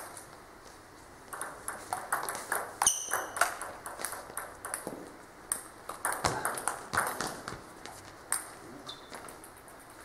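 Table tennis ball clicking sharply off bats and table in quick irregular runs, with a short squeak about three seconds in.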